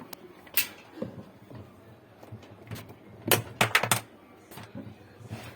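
Sharp clicks and knocks of hard objects being handled: one about half a second in, then a quick run of several between three and four seconds in, as when parts or tools are worked on a washing machine.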